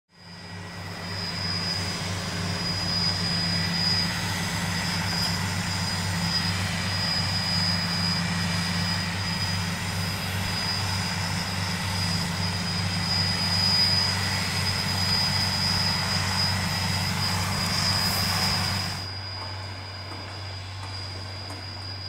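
Fendt 718 Vario tractor's six-cylinder diesel engine running steadily under load while pulling a front-mounted rotary cultivator and an eight-furrow plough through the soil, with a steady high whine over the engine. It fades in at the start and about nineteen seconds in drops to a quieter, more distant running.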